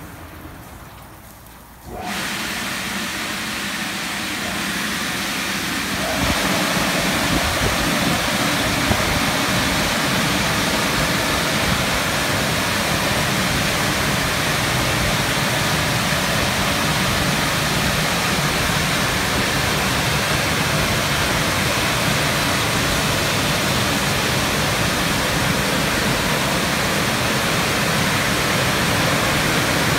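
Istobal M12 rollover car wash's drying blowers switching on suddenly about two seconds in, stepping up louder a few seconds later, then blowing a steady, loud rush of air over the car.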